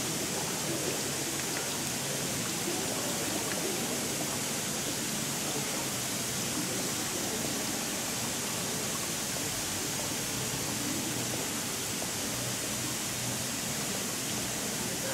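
Steady hiss of a sprinkler system's water jets spraying and falling: an even rushing noise.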